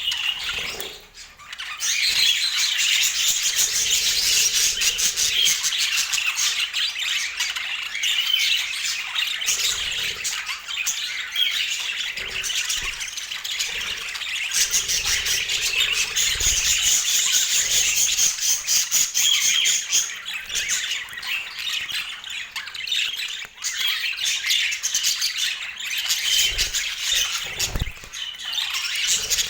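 Budgerigars chattering: a dense, continuous stream of rapid chirps and warbles, with a brief lull about a second in.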